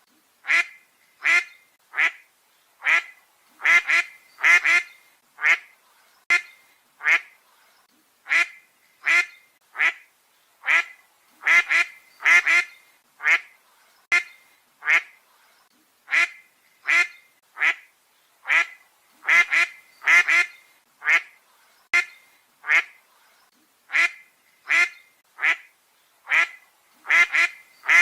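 Duck quacking over and over, short separate quacks about one every second, now and then two in quick succession.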